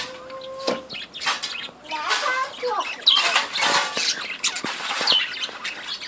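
A flock of budgerigars chattering, a busy run of short chirps, warbles and sharp calls, thickest in the middle.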